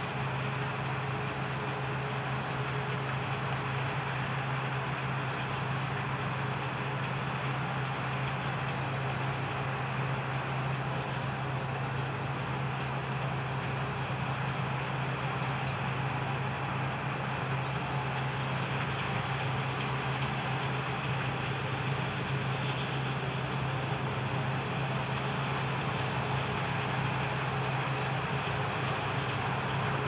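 New Holland CX820 combine harvester running steadily as it cuts wheat: an even engine and threshing drone with a strong low hum.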